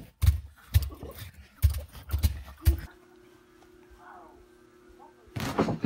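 A run of about seven irregular heavy thumps and knocks, then a faint steady hum, with a loud noisy burst near the end.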